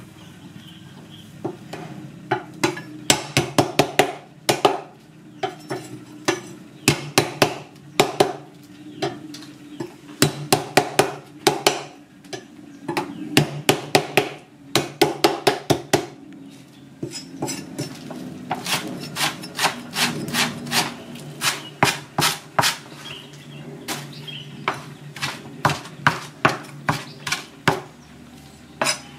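Cleaver chopping lemongrass and herbs on a chopping board over a wooden block: quick runs of sharp knocks, several a second, broken by short pauses.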